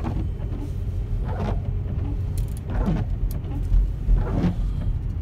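Worn windshield wiper blades sweeping across the minivan's rain-wet windshield, one pass about every second and a half, each a short sound falling in pitch, heard from inside the cabin over the steady low rumble of the van driving.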